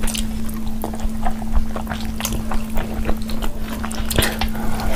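Close-miked wet eating sounds: chewing, lip smacks and fingers squishing through saucy chicken curry, a quick irregular run of small clicks and smacks over a steady low hum.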